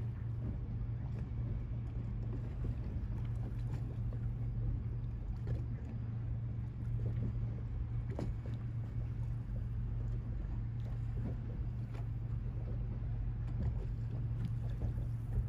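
Steady low drone of a large ship's engines, unchanging, with faint scattered ticks over it.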